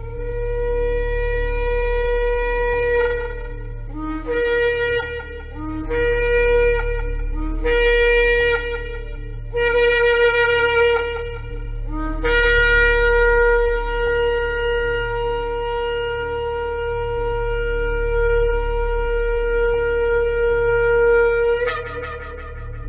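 Shofar (ram's horn) sounded in a series of blasts: a long blast, four shorter blasts that each step up from a lower note, then one very long held blast that rises sharply in pitch just before it cuts off. A low steady hum lies underneath.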